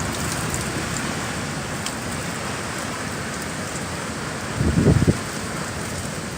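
Heavy rain and wind of a severe thunderstorm, a steady loud hiss. A short, louder low-pitched burst comes about four and a half seconds in.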